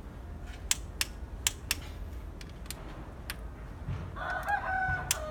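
Several sharp clicks from a wrench tightening cylinder head bolts. From about four seconds in, a rooster crows, the loudest sound here.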